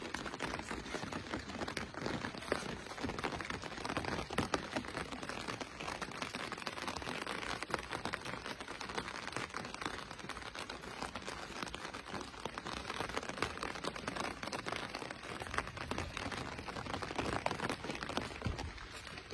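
Rain falling on a clear plastic umbrella overhead: a dense, steady spatter of drop hits.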